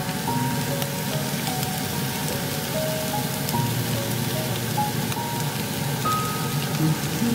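Broccoli sizzling and crackling in an oiled frying pan with a little added water, a steady rain-like frying noise. Soft background music with a simple melody of short held notes plays over it.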